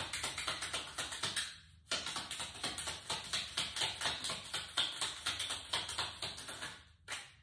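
A deck of oracle cards being shuffled in the hands: a rapid, even run of soft card slaps, several a second, pausing briefly about two seconds in.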